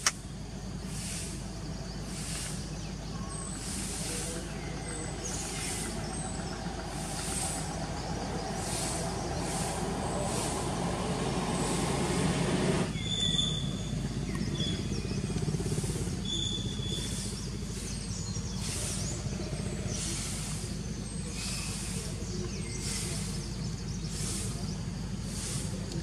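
A motor vehicle approaching on a road, growing steadily louder over several seconds and cut off abruptly about halfway through. Under it run a steady low hum and high insect noise pulsing about once a second, with a few short high chirps after the cut.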